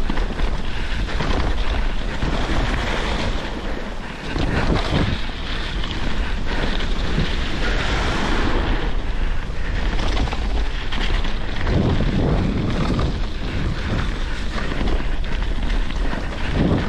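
Wind buffeting a bike-mounted camera's microphone, over the rumble and rattle of mountain bike tyres rolling fast over a gravel trail.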